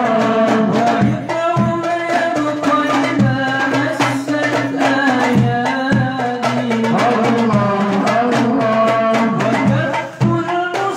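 Hadroh ensemble: voices singing an Islamic devotional song over hand-beaten frame drums (rebana) keeping a steady rhythm.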